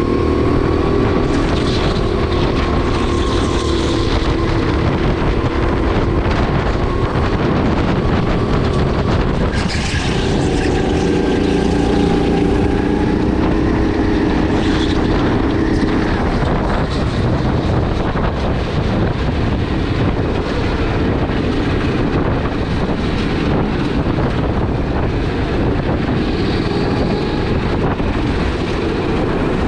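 Sodi RX8 rental kart's 270 cc LPG engine running on track, its pitch rising and falling with throttle. Wind buffets the microphone.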